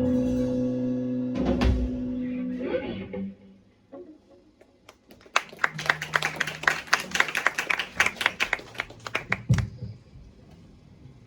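Guitar-led music ends on a final chord that rings out and dies away. After a short pause comes about four seconds of quick, irregular hand clapping.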